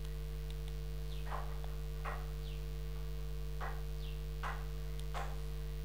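Steady electrical mains hum on the recording, with a series of short, quick chirps that fall in pitch, about one to two a second.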